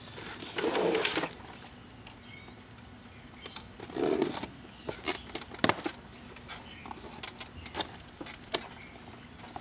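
Knife cutting open the top of a cardboard box: two longer scraping rustles, about a second in and again about four seconds in, and several sharp clicks and taps of the blade and cardboard.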